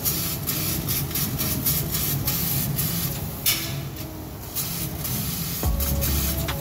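1 kW fiber laser cutting machine at work on sheet metal: a continuous hiss broken by many short, sharp bursts of hiss. A low steady hum comes in near the end.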